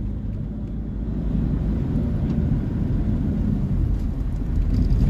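Steady low rumble of road traffic: vehicle engine and tyre noise in slow, congested city traffic, with no distinct horn blast standing out.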